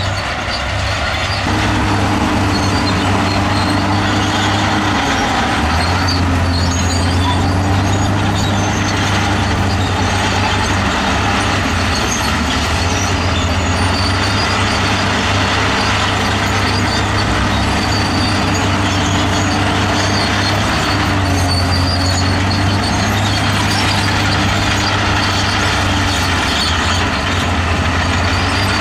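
Heavy diesel engine of earthmoving machinery running steadily under load, its note shifting a few times as the engine works harder and eases off.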